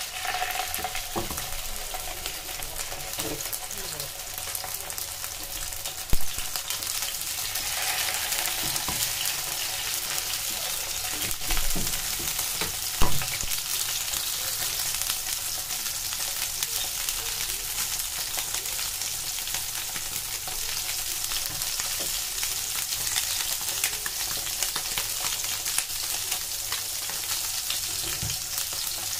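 Sockeye salmon fillets frying skin side down in hot oil in a non-stick pan, a steady sizzle. Two brief sharp knocks stand out, about six and thirteen seconds in.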